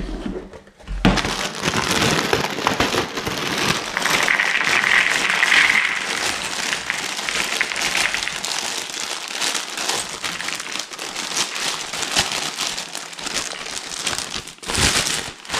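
Thin plastic bag of cardboard jigsaw puzzle pieces crinkling steadily as it is handled and emptied, with a sharper crackle near the end.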